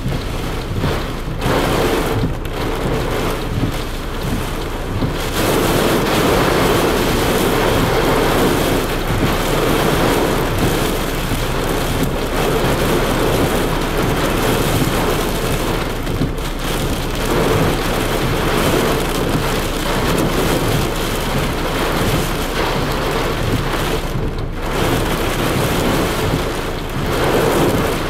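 Heavy rain and gusting wind from a severe squall line beating on a car, heard from inside the cabin. The downpour grows heavier about five seconds in.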